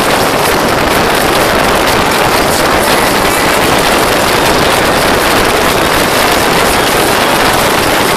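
Motorboat under way: a steady, loud rush of wind buffeting the microphone mixed with engine and water noise.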